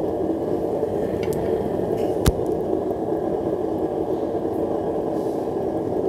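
Foundry furnace burner running with a steady rushing noise while a steel rod scrapes slag from the crucible of molten aluminum. There is a single sharp tap a little over two seconds in.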